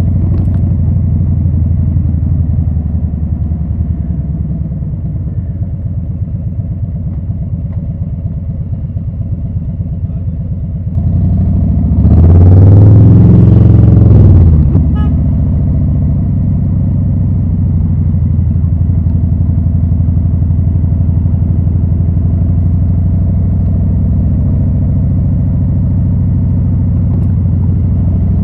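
2020 Harley-Davidson Low Rider S's Milwaukee-Eight V-twin running through Rinehart slip-on exhausts with a steady pulsing note. About halfway through the throttle opens and the note rises then falls over a couple of seconds before settling back.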